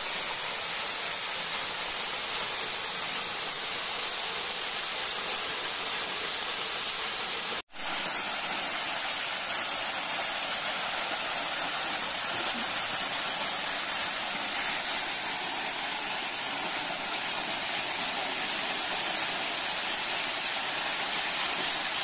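Waterfall's steady rushing water pouring onto a shallow rocky pool, cutting out for an instant about eight seconds in.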